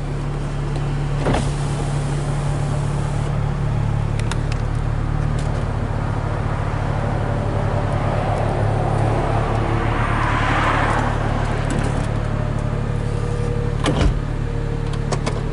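2007 BMW 335i's electro-hydraulic folding hardtop cycling: a steady whir of the pump and moving roof panels over a steady low hum, with a few clicks and a louder clunk about a second before the end as the roof latches.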